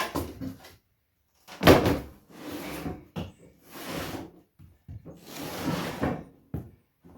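A sharp knock about 1.7 s in, then several rasping scrapes and clatters as mower deck parts are shifted and handled.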